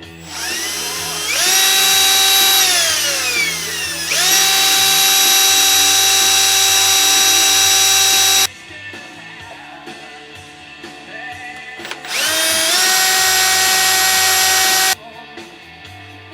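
Power drill running in two long bursts, its motor whine rising as it speeds up and holding a steady pitch. Between the bursts it slows with a falling whine, and each burst cuts off suddenly.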